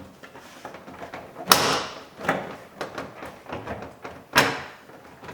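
Plastic retaining clips of a car's rear door trim panel snapping loose as the panel is pried off the door: two sharp, loud snaps about three seconds apart, with smaller knocks and rattles of the panel between them.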